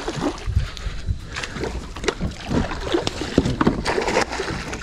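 Irregular knocks and bumps on a plastic fishing kayak and its gear, with water splashing from a hooked bowfin thrashing at the surface.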